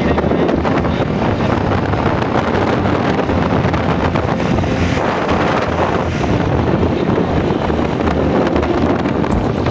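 Wind buffeting a handheld wired-earphone microphone in a steady, loud rumble, with traffic or vehicle noise mixed in.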